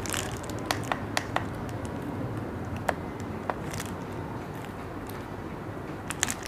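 Small sharp clicks and knocks from a handheld digital multimeter in a rubber holster being handled and turned over, a few close together about a second in, two more around three seconds, and a pair near the end, over low room noise.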